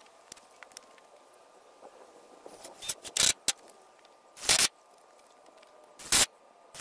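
A red-handled hand tool worked on a homemade wooden coop door: about five short, sharp snaps, starting about three seconds in and coming irregularly, with quiet between them.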